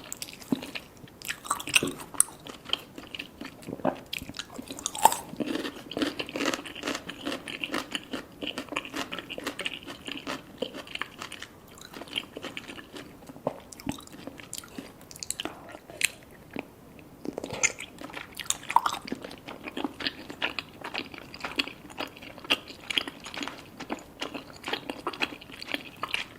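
Close-miked eating sounds: wet chewing, biting and smacking of cheesy rice cakes and fish balls, a dense run of short clicks and squelches.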